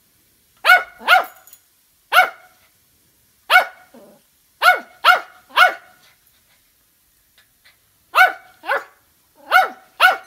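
Small terrier barking in short, sharp, high-pitched barks, about eleven in clusters of one to three, with a pause of about two seconds near the middle. It is barking at a fidget spinner held in front of it.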